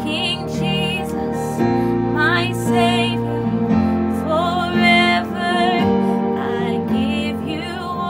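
A woman singing a slow gospel worship song, her voice sliding up into held notes with vibrato, over sustained instrumental backing chords that change every couple of seconds.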